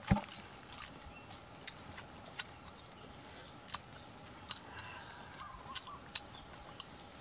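Roasted duck being eaten: sparse, irregular crisp clicks and crunches from chewing, over a faint steady high-pitched hum.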